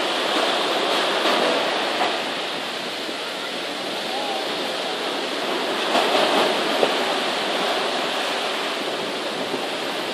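Steady rushing of sea surf.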